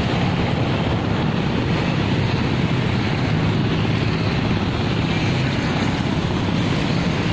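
Steady traffic of motorcycles and cars passing close by, with a continuous engine hum and wind buffeting the microphone.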